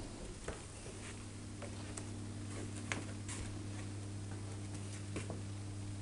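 Australian magpie's claws ticking on the floor as it walks: a handful of light, scattered taps over a steady low hum.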